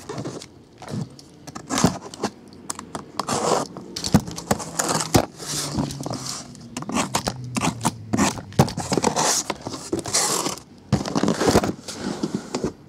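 Cardboard shipping case being opened by hand: packing tape cut and torn, cardboard flaps scraping and rustling, with irregular sharp clicks and knocks as the card boxes inside are moved.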